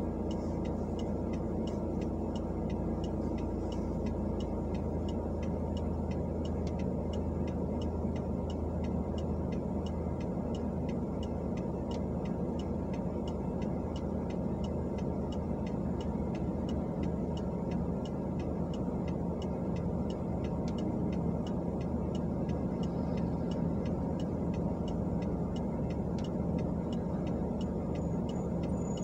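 A car idling while stopped, heard from inside the cabin as a steady low hum, with the turn-signal indicator ticking evenly a couple of times a second.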